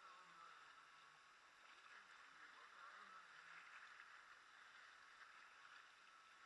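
Very faint water sounds of a kayak being paddled: soft hiss of water with a few light splashes and drips from the paddle.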